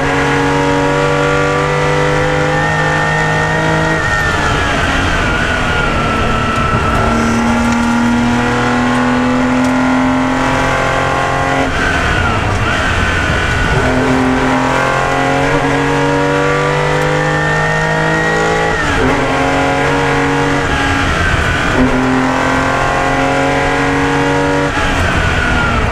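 Porsche 911 RSR rally car's flat-six engine at full effort, heard from inside the cabin, its pitch climbing and dropping several times with gear changes and lifts for corners, over steady tyre and road noise.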